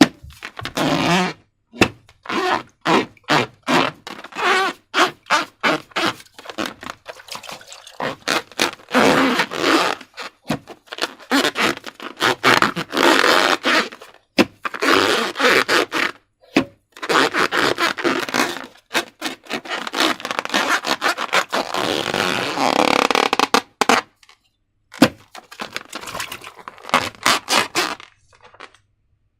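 Slime being squeezed and worked by hand, squelching and crackling in quick irregular bursts as air pockets in it pop, with a few short pauses.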